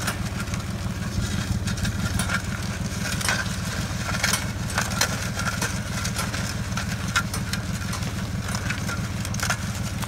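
Small farm tractor's engine running steadily at low speed while pulling a plastic mulch layer, with scattered light clicks over it.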